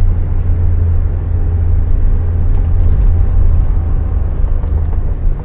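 Steady low rumble of a moving car heard from inside the cabin: the taxi's engine and road noise while driving.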